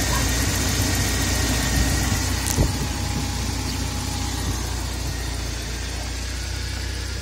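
BMW E36 318is four-cylinder 16-valve engine idling steadily, heard with the bonnet open. A single short knock comes about two and a half seconds in.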